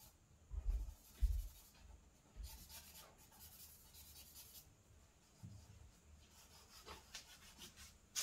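Charcoal being worked on drawing paper by hand, a soft rubbing and scratching on the paper against the board. A few low bumps come about half a second to a second and a half in, then a run of scratchy strokes lasts about two seconds.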